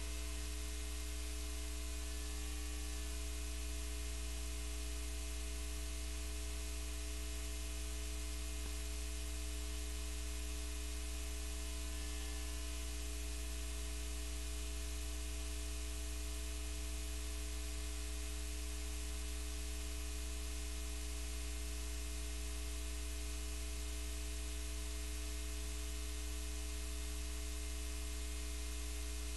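Steady electrical hum under an even hiss, with a few faint fixed tones above the hum.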